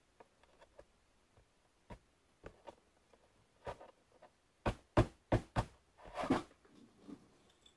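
Cardboard jigsaw puzzle pieces being fitted and pressed down onto a tabletop by hand. Scattered soft clicks are followed about halfway through by four sharp taps in quick succession and then a brief rubbing scuff.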